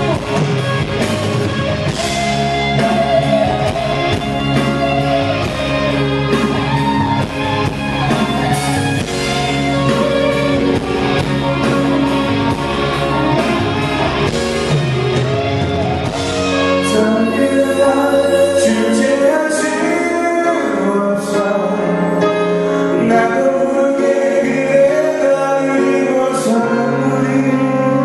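Live band music with a male voice singing, guitars and drums under it; the deep bass drops out a little over halfway through, leaving a lighter accompaniment.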